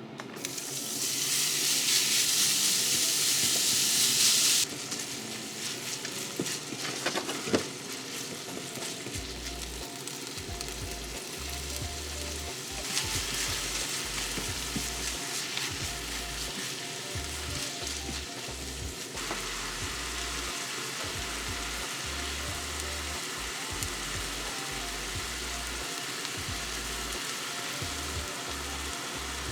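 Food frying in oil in a pan: a loud burst of sizzling for about four seconds near the start, then steadier, quieter sizzling with occasional clicks of a utensil stirring. Faint background music underneath.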